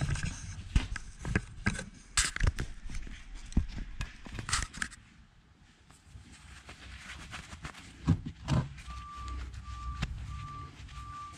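Clunks and knocks of rusty metal parts being handled on a workbench, most of them in the first five seconds. From about nine seconds in, a short electronic beep repeats about twice a second, like a vehicle's reversing alarm.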